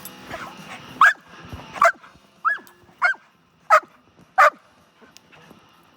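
A dog barking six times in quick succession, short high-pitched barks.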